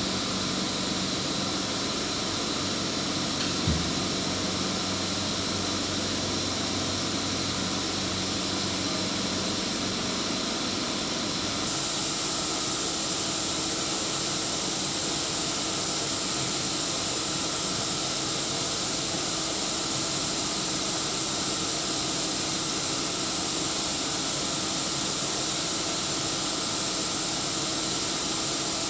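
CNC router machinery running steadily: a constant whine with several fixed tones over hiss. The tones shift to a new set about twelve seconds in. A single short knock comes about four seconds in.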